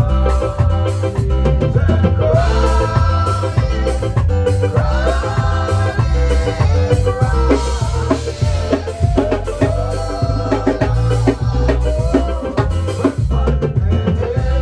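Upbeat gospel praise music from a band with drum kit and bass, driving a steady, dance-like beat.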